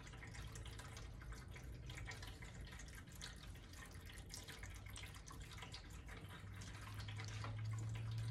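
Faint steady trickling and dripping of water, likely from a small electric water fountain, with a low pump hum that grows stronger in the last second or two. Soft rustles and small ticks come from the cord and macrame being handled.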